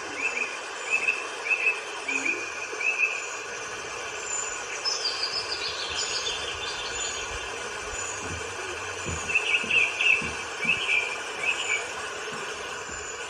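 Wild birds calling: bursts of short chirps, a quick falling series of notes about five seconds in, and a high peep repeated at an even pace, over a steady rushing background noise.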